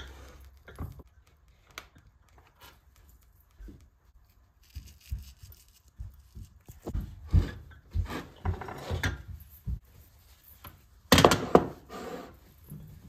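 Ceramic ramekins and a metal baking tray knocking and scraping on a bamboo cutting board as they are handled, partly with an oven mitt: scattered knocks and rubbing, with a loud cluster of clunks near the end.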